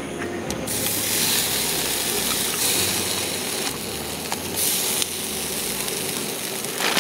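Meat sizzling on a small camp grill: a steady hiss that starts about a second in and swells twice.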